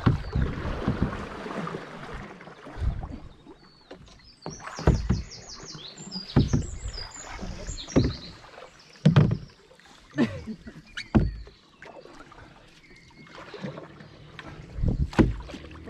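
Canoe being paddled on a river: paddle strokes through the water, with a low thump every second or two as the paddles pull and knock against the canoe. There is a gust of wind on the microphone at the start, and a bird chirps in quick repeated high notes around five to seven seconds in.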